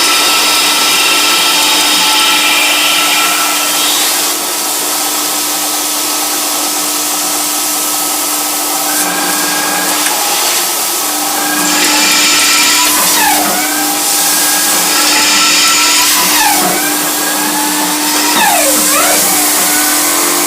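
CNC lathe running, with a steady machine whine over a constant hiss. In the second half the pitch dips and recovers quickly several times.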